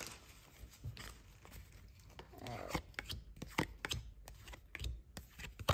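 Stack of Donruss football trading cards being flipped through by hand: light clicks and slides of card stock against card, coming faster from about three seconds in.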